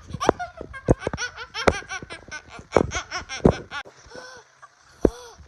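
A child laughing hard in quick high-pitched peals that stop a little under four seconds in, followed by a single short sharp sound near the end.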